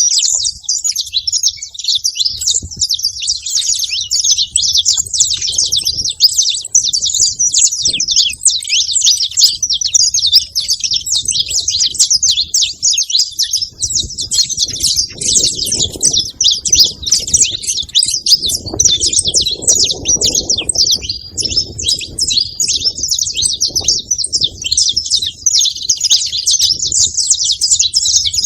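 Saffron finches chirping continuously, many quick high calls overlapping in a dense chatter, as a flock feeding together makes. A faint low rumble runs under it through the middle part.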